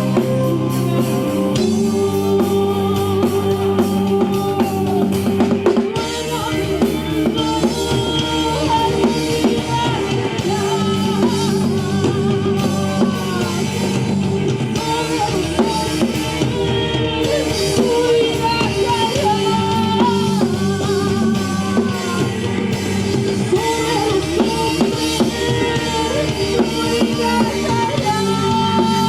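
Rock band playing a song: drum kit with bass drum, bass and electric guitar. A singer's voice or lead melody comes in over the band about six seconds in.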